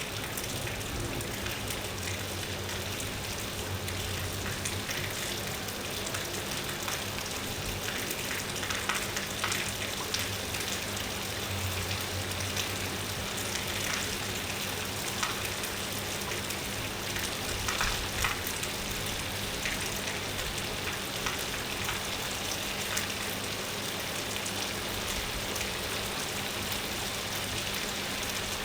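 Steady rain falling, an even hiss with scattered louder drops ticking through it.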